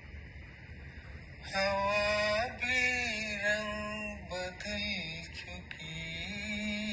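A song with a voice singing long, held notes that slide in pitch. It comes in suddenly about a second and a half in, after a quieter start.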